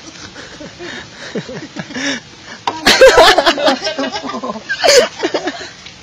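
Young men's voices laughing and talking, the laughter loudest about three seconds in, with another short outburst near five seconds.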